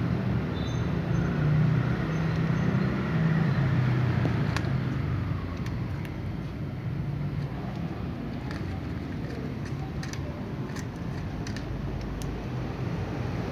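Steady low rumble of motor-vehicle noise, louder over the first few seconds and then settling, with a few faint clicks through it.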